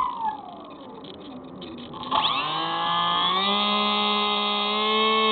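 Hubsan Spy Hawk RC plane's electric motor and propeller, heard through its onboard camera. A falling whine fades away at first, then about two seconds in the motor spins up with a rising whine and settles into a steady high hum.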